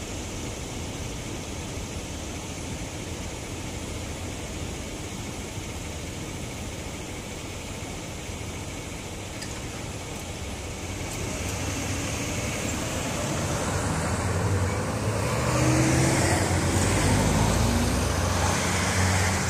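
Road traffic starting up and driving over a railroad grade crossing as the gates lift: a pickup and cars moving off. The sound grows louder over the second half as vehicles pass close by.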